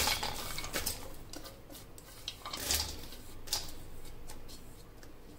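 Spoon clinking and scraping in a cooking vessel as dry fried ingredients are stirred together, with short rustles and scattered light clicks.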